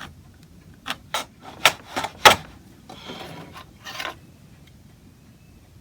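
Hand tools being handled at the workbench: a quick run of five sharp knocks and clicks in just over a second, then a short scrape and one softer knock.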